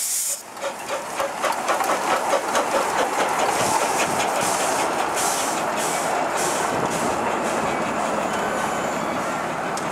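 Miniature live-steam locomotive pulling away with its coaches: a quick run of exhaust chuffs with hissing steam from the cylinders, which gives way to a steady hiss and the rumble of the train rolling past.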